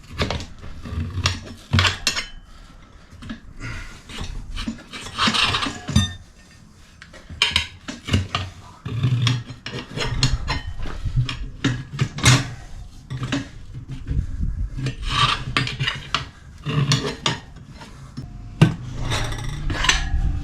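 Hand tools working a motorcycle tyre off its rim: irregular scraping and rubbing, with sharp metal clicks and knocks.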